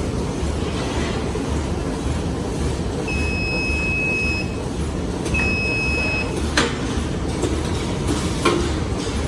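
Drawstring trash bag making machine running at speed, a steady mechanical din with an even low pulsing rhythm. Two long high beeping tones sound in the middle, followed by a couple of sharp clicks.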